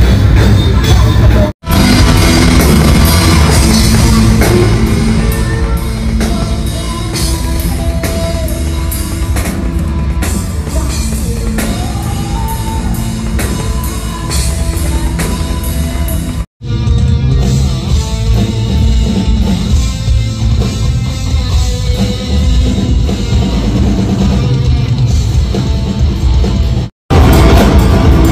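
Heavy metal band playing live, with drum kit, guitar, bass and singing. The sound drops out for an instant three times, where clips are joined.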